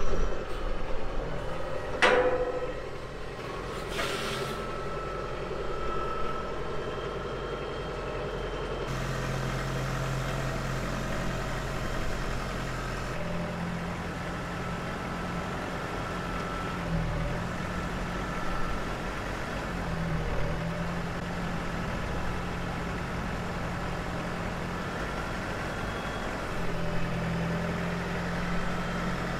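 Branson tractor's diesel engine running as the tractor drives down the trailer ramps and across the pavement. Sharp clunks come about two and four seconds in, and the engine note shifts a couple of times after that.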